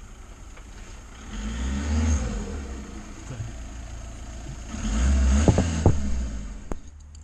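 Road vehicles passing by, two swells of engine and tyre rumble that rise and fade, the first about a second and a half in and the second, louder one around five seconds in. A single sharp click near the end.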